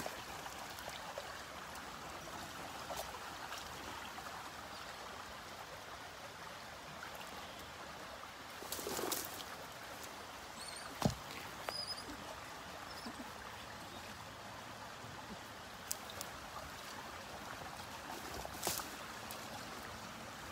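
River water flowing and rippling steadily past the bank, with a few brief clicks and knocks along the way.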